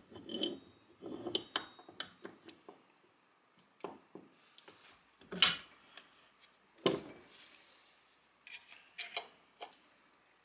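Drill press head and its metal parts clinking and knocking as they are handled and fitted together on a wooden workbench: scattered light clinks, with two louder clunks about five and a half and seven seconds in.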